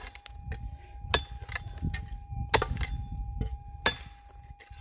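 Pick chopping into hard, stony ground to dig out a deep metal-detector target. Three heavy strikes come about a second and a half apart, with lighter knocks and clinks of stones between.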